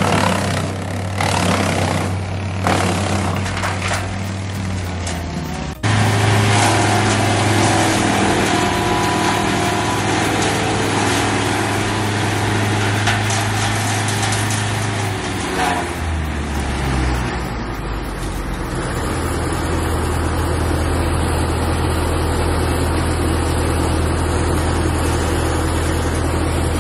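A large engine running steadily with a low hum. It cuts out for a moment about six seconds in, and its pitch drops and settles lower from about sixteen seconds in, as if under load.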